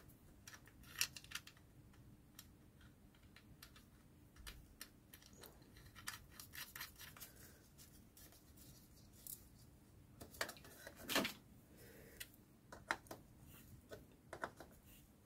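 Faint handling noises of hands fitting switches and wires into a motorcycle headlamp shell: scattered small clicks and scrapes, with a louder scrape and clicks about eleven seconds in.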